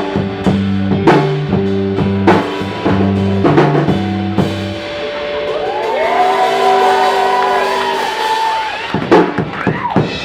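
A live rock band playing: drums and bass guitar drive a steady beat with repeated bass notes, then about halfway through the bass and beat drop away and electric guitars ring on with notes sliding up and down. A few last drum hits come near the end before the sound cuts off.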